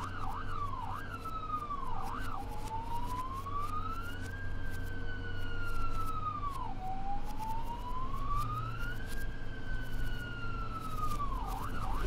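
Ambulance siren: a fast yelp of about three sweeps a second gives way to a slow wail that rises and falls twice, each sweep lasting two to three seconds, then switches back to the fast yelp near the end. A low steady hum runs underneath.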